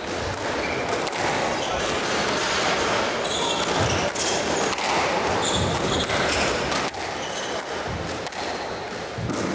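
Squash rally: the ball is struck by racquets and smacks off the court walls in a reverberant hall, with short high squeaks from shoes on the court floor between shots.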